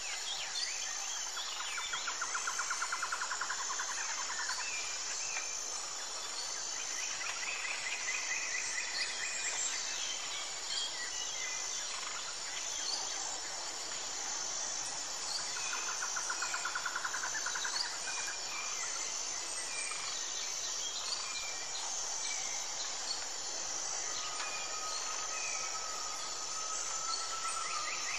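Birds singing over a steady, high-pitched insect chirring: a fast trill comes twice, with scattered chirps between and a drawn-out whistle near the end.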